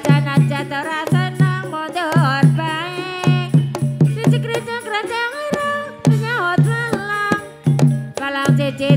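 Banyumasan gamelan music accompanying an ebeg trance dance: a singer holds a wavering melody with heavy vibrato over frequent sharp hand-drum strokes and a repeating low gong-like tone.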